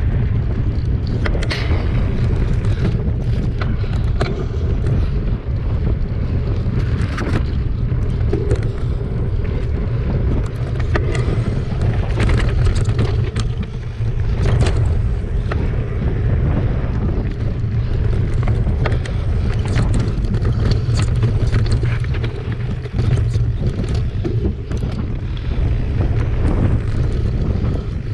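Wind buffeting the microphone of a camera mounted on a mountain bike coasting down a rough dirt singletrack. Many short clicks and rattles come from the bike as it goes over the bumps.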